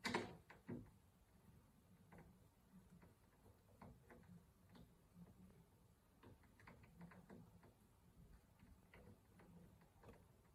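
Two knocks in the first second as a canvas wall panel is pressed against the wall, then faint, irregular clicks and small scrapes of a hand screwdriver working at the panel's edge.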